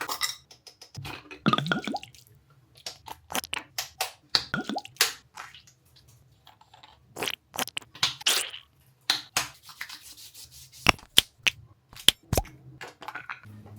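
Irregular close-up clicks, taps and squishing sounds of small objects being handled, over a faint low hum.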